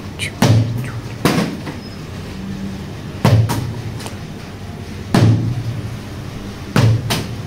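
Part-filled plastic water bottle being flipped and landing on a cloth-covered wooden box top: a series of about six hollow knocks, one to two seconds apart, with two close together near the end.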